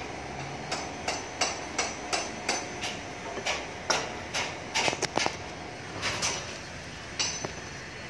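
Hammer blows at a construction site, irregular, about two a second with short pauses, each strike leaving a brief ring.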